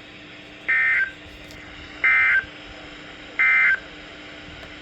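Emergency Alert System end-of-message signal: three short bursts of buzzy digital data screech, each about a third of a second long and evenly spaced, with a faint steady hum from the radio reception between them.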